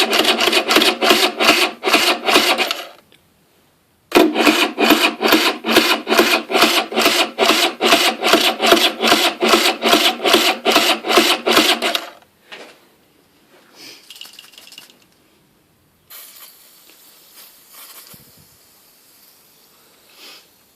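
Aprilia RS50's electric starter cranking its 50cc two-stroke single in even rasping pulses, about four or five a second, without the engine firing: a non-start despite a fully charged battery. Cranking stops about three seconds in, resumes about a second later, and cuts off about twelve seconds in, leaving only faint small sounds.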